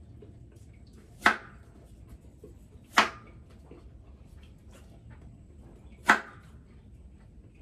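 Kitchen knife cutting an apple on a wooden cutting board. The blade knocks sharply on the board three times: about a second in, at three seconds, and just past six seconds. Faint small clicks of slicing come in between.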